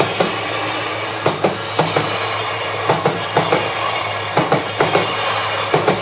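Odakyu electric commuter train passing close by. There is a steady rolling roar and low hum, and the wheels give rhythmic clacks in quick groups of two to four as each bogie crosses the rail joints.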